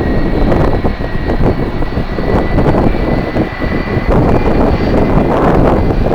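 Airliner jet engines running, with a steady high whine over a dense rumble, and strong wind buffeting the microphone.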